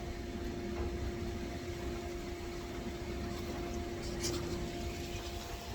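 A steady machine hum over a low rumble; the hum stops shortly before the end.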